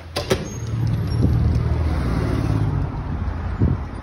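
A glass door clicks open, then a motor vehicle's engine runs loud and steady as it passes on the street, fading after about three seconds. A single knock comes near the end.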